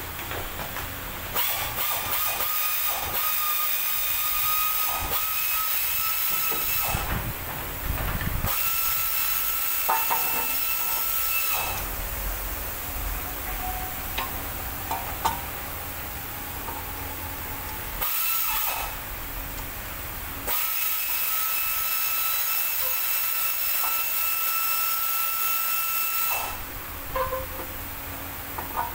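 Compressed air hissing out with a steady whistle, in several long blasts of a few seconds each that start and stop abruptly, with a few light clicks in between.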